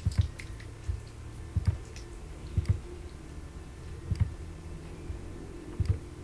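Computer mouse clicks, several in quick pairs like double-clicks, about once a second over a faint steady hum.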